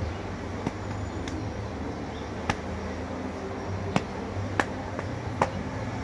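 About six sharp clicks or taps at uneven intervals, over a steady low hum.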